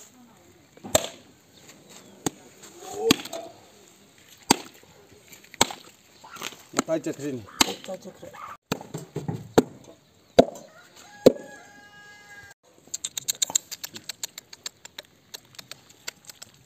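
A large butcher's knife chopping through a pig carcass: about a dozen sharp blows roughly a second apart, with people talking between them. Near the end comes a fast run of light clicks from a puppy lapping blood off a plastic tarp.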